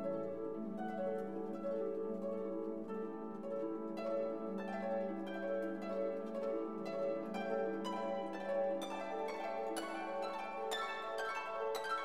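Background instrumental music: plucked, harp-like string notes over held lower notes, the plucked notes coming faster in the second half.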